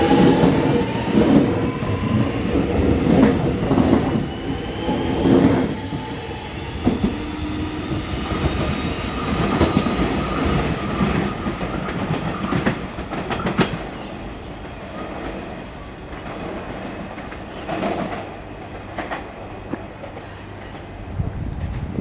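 X'Trapolis 100 electric suburban train accelerating away from the station: its traction motors whine, rising in pitch, while the wheels knock over rail joints. The sound fades as the train draws away.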